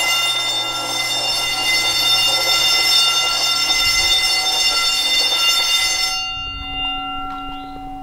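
Gentex GB10-24 10-inch fire alarm bell ringing continuously in alarm, heard from outside through an open garage door. About six seconds in, its bright upper ring drops away and it goes duller and quieter, with low footstep thumps underneath.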